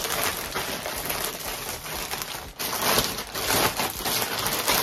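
Packaging crinkling and rustling continuously in the hands as a pair of sandals is unwrapped.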